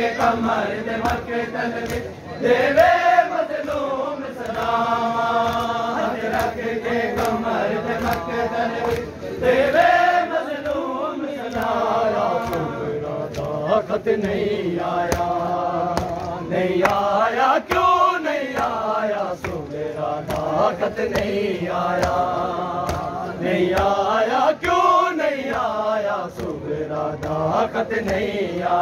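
Men's voices chanting a nauha (Muharram lament) in long, rising and falling phrases, over repeated sharp slaps of hands on bare chests in matam.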